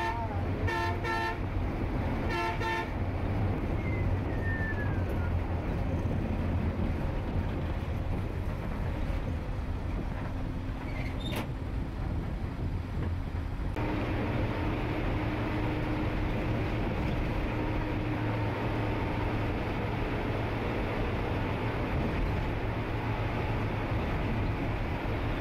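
Eicher 20.15 bus heard from inside the cabin behind the driver, running steadily with a low engine drone and road noise. A few short horn toots sound in the first three seconds. The road noise grows louder about 14 seconds in.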